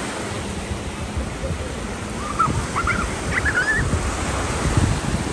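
Small waves washing up on a sandy beach, with wind buffeting the microphone in low gusts. A few short, high calls come from about two and a half to four seconds in.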